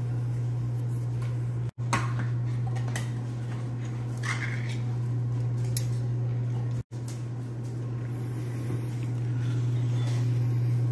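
A few light clinks and clatter of stainless steel dog bowls and utensils as a dog meal is put together, over a steady low hum. The sound drops out for an instant twice.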